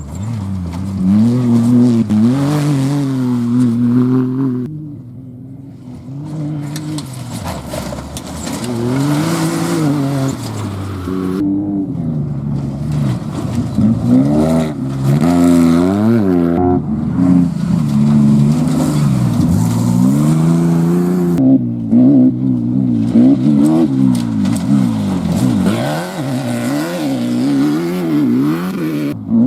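Off-road race vehicles' engines revving up and down at speed, the pitch rising and falling over and over. The sound changes abruptly several times as one clip cuts to the next.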